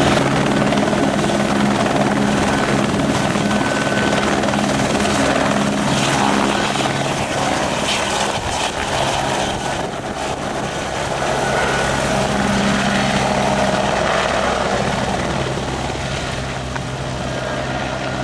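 Tour helicopter close by, its engine and rotor running loud and steady as it takes off. The sound eases off somewhat near the end.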